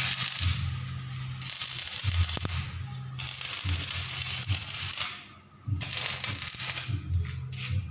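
Electric arc welding on a steel bumper frame: the arc's steady crackling sizzle, breaking off briefly about a second in, again near three seconds and for a longer pause past five seconds before it restarts, with a low hum underneath.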